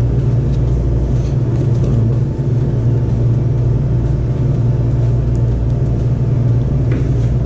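A loud, steady low-pitched mechanical hum that does not change, with faint rustles of a cardboard box being handled.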